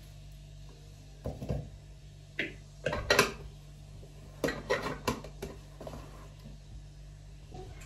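Onion pieces and garlic cloves being put into the glass bowl of a small electric chopper: a run of short clunks and clatters, a few separate ones in the first three seconds and a quick cluster about five seconds in. A steady low hum runs underneath.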